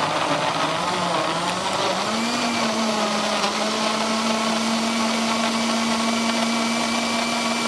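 Countertop electric blender running at speed, chopping chunks of raw apple, carrot and celery in water into a juice. The motor's pitch rises a little about two seconds in as the pieces break down and the load eases, then holds steady.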